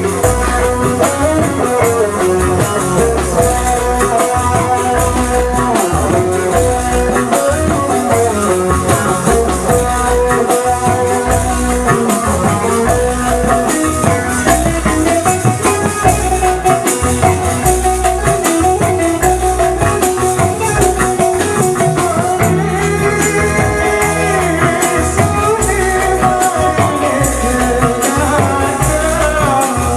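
Sasak kecimol band music from Lombok played loud through an amplified sound system: a steady, regular drum beat under melody lines, with rattling, shaker-like percussion throughout.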